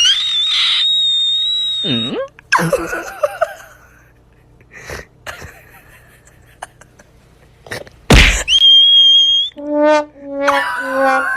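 Cartoon-style comedy sound effects: a held high whistle tone, a swooping down-and-up slide-whistle glide, scattered clicks, a loud sudden burst about eight seconds in followed by another whistle tone, and a run of stepped horn-like notes near the end.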